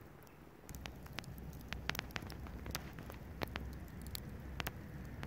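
Campfire embers crackling with sharp, irregular pops and ticks, over a low rumble that starts about a second in.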